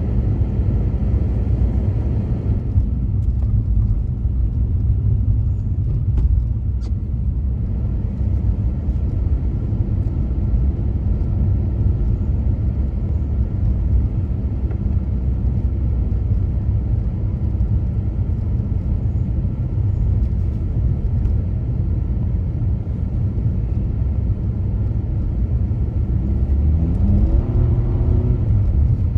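Car driving on snowy roads: a steady low rumble of engine and tyres, with a tone that rises near the end as the car picks up speed.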